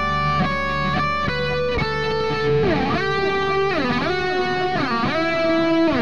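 Background music: an electric guitar plays a melody whose notes slide up and down in pitch, over low sustained notes.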